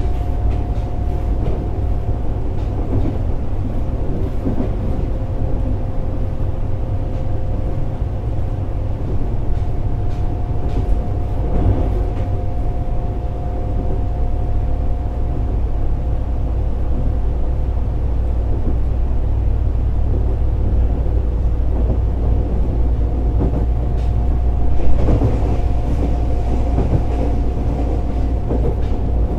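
Fukuoka City Subway 1000N series train running along the line: a steady low rumble of wheels on rail with a faint steady whine. A brief louder knock comes near the end.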